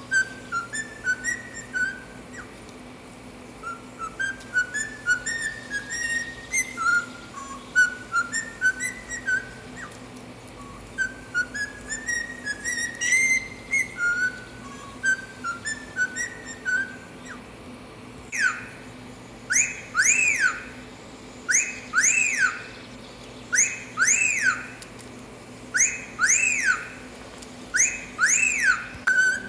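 Cockatiel whistling: first a tune of short stepped notes, then, from a little over halfway, the 'fiu-fiu' wolf whistle repeated in pairs of rising-and-falling whistles.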